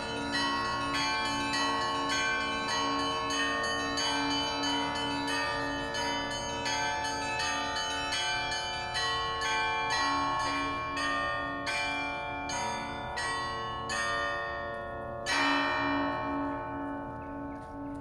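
Russian Orthodox church bells ringing: quick repeated strokes of the small bells over steady, evenly spaced strokes of a middle bell. About fifteen seconds in, one heavy stroke sounds. After it the small bells fall silent and the ringing dies away.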